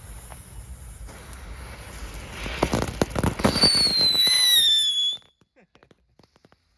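Concorde Jet novelty ground firework going off: a hissing, sputtering spray of sparks builds up, then a loud whistle starts about three and a half seconds in, sliding slightly down in pitch, and stops abruptly about a second and a half later, leaving a few faint clicks.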